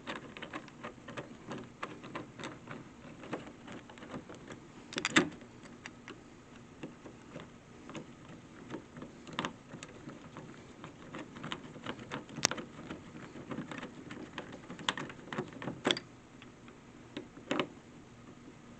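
Doorknob hardware being fitted to a door: scattered metallic clicks and light knocks at uneven intervals, the loudest knock about five seconds in and a sharp click about halfway.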